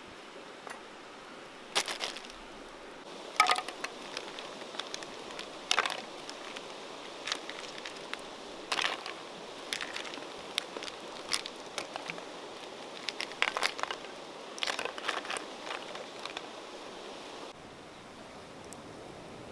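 Small wood fire crackling under a clay cooking pot, irregular sharp pops and snaps over a steady low hiss.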